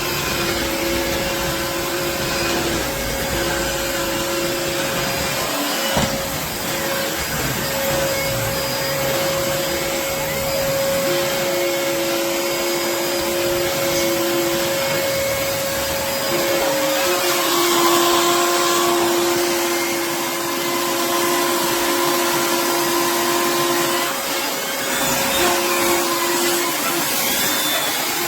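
Vacuum cleaner running steadily, a loud even rush of air with a motor hum whose lower tone drops in and out every few seconds.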